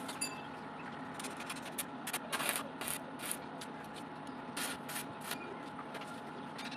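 Steel parts and a welding cable scraping and clinking on a concrete floor in a few short bursts, over a steady background hum.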